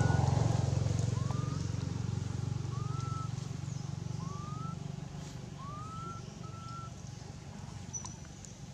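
A motor vehicle's engine hum, loudest at the start and fading away as it passes. Short rising chirps sound about five times over it.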